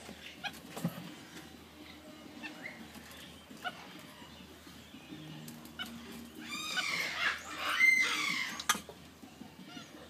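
Capuchin monkeys calling: scattered short rising chirps, then a loud burst of high squealing calls about two-thirds of the way through. There is a sharp knock about a second in and another near the end.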